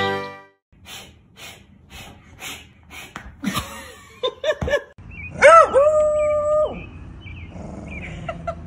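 A dog vocalizing: a few short yelps, then one long howl held for about a second a little past the middle.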